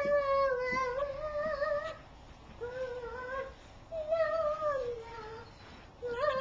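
A young girl singing in a high, wavering voice: long drawn-out notes in several phrases with short breaks between them, the words hard to make out.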